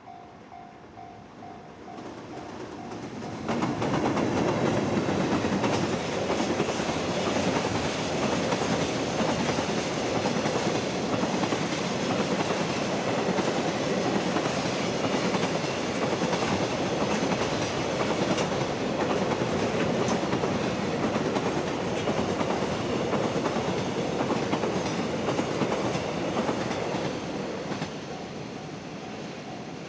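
Freight train passing close by, a loud steady rush of wheels on rail with clatter over the joints, arriving suddenly a few seconds in and dropping away near the end. A repeating ding sounds before the train arrives and again after it has passed.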